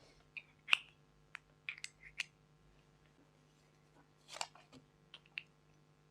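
Slime being pressed and folded by hand, giving a scatter of sharp clicks and pops as trapped air bursts, in two short bursts of activity a couple of seconds apart.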